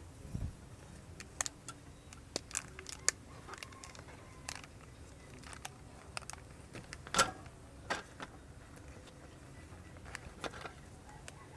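Irregular light clicks and taps of wooden chopsticks being handled on a metal tray and slid in under the rubber bands of a banana-leaf-wrapped pork roll, with a soft thump just at the start and the sharpest click about seven seconds in.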